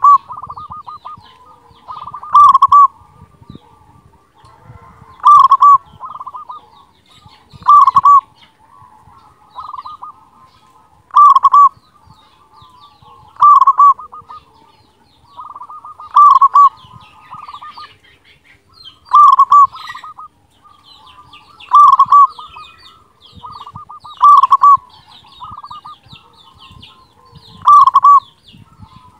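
Zebra dove (perkutut) singing its cooing song over and over, a phrase about every two and a half to three seconds. Each phrase is a softer rolling lead-in followed by loud ringing end notes.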